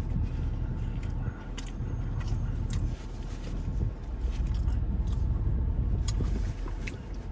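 Low, steady rumble of a car heard from inside the cabin, with scattered light clicks and rustles from eating a hot sandwich.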